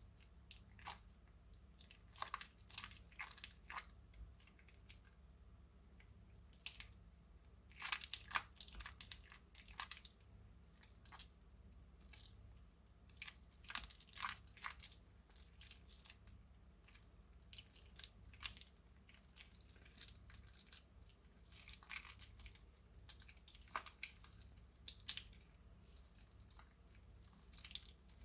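Soaked glycerine soap plates being handled and washed by hand, giving clusters of crisp crackling crunches with short pauses between them.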